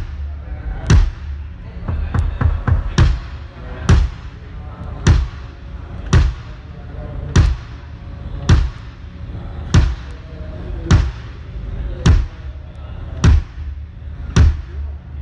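Drum sound check: one drum struck steadily, about once a second, with a quick run of lighter hits about two seconds in, over a steady low hum.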